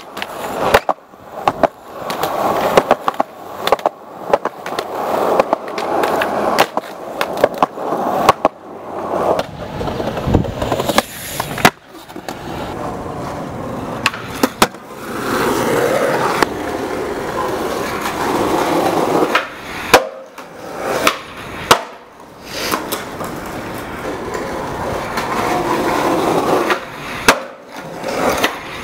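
Skateboard wheels rolling over concrete, broken by many sharp clacks and slaps from tail pops and board landings over a run of tricks.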